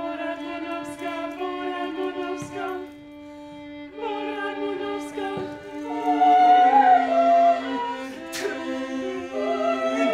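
Contemporary opera music: singing voices over a steady held low note and bowed strings, with the melody rising and wavering loudest about two thirds of the way in. A few sharp knocks cut through.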